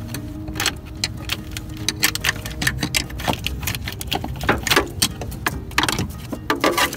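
Hands unplugging the electric cooling fan's wiring connectors at the radiator: a run of irregular sharp clicks and plastic rattles over a low steady hum.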